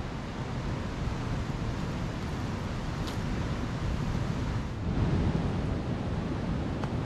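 Ocean surf breaking on the beach, a steady wash with wind buffeting the microphone; a wave surges a little louder about five seconds in.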